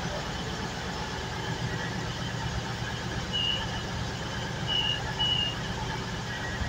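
Class 220 Voyager diesel multiple unit standing at the platform, its underfloor Cummins diesel engines idling in a steady low hum. Its door-closing warning gives short high beeps, one about halfway through and two close together later.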